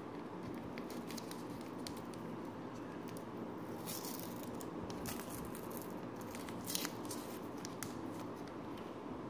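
A foil sachet of pre-moistened screen-cleaning wipe being torn open and crinkled by hand: scattered short crackles and rustles over a quiet room, the loudest about two-thirds of the way through.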